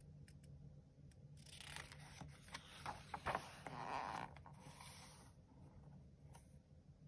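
A page of a picture book being turned by hand: a faint paper rustle and slide lasting about four seconds, with a few sharp crackles in the middle.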